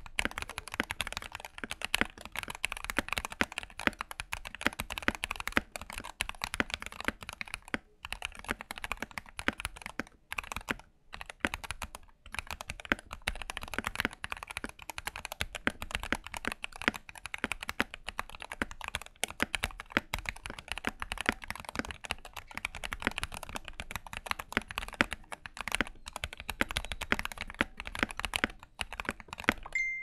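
Fast, continuous typing on a Tecware Veil80 75% mechanical keyboard with Gateron Yellow linear switches, lubed stock stabilizers with Micropore tape and two layers of Tempest tape inside the case. There are a few brief pauses between bursts of keystrokes.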